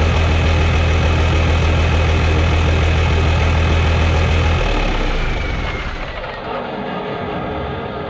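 Large diesel engine running steadily with a deep, even hum; about four and a half seconds in, its low note drops away and the sound fades off.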